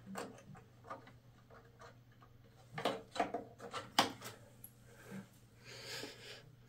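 RAM modules being pushed back into the memory slots of a Dell Inspiron 530 desktop tower: a few sharp plastic clicks and knocks about three and four seconds in as the sticks seat and the slot latches snap shut, with lighter handling ticks around them.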